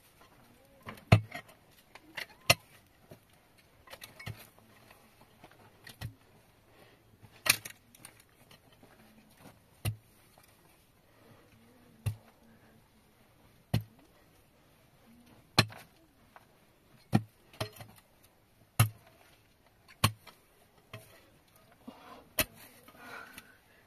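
A series of sharp knocks, about one every one and a half to two seconds, with quiet between them.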